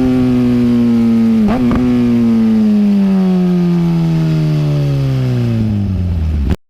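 Kawasaki Ninja ZX-10R's inline-four engine running as the revs fall slowly and steadily, with a brief break in the note about a second and a half in. The sound cuts off abruptly near the end.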